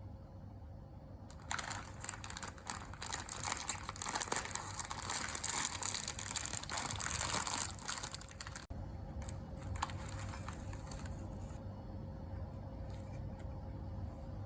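Plastic packaging crinkling and rustling as it is handled and torn open, a dense crackle for about seven seconds that then thins to a few scattered crackles.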